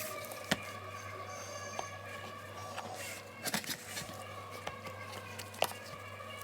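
Steady background music or hum with a few sharp clicks and taps, the clearest about half a second in, around three and a half seconds and near the end.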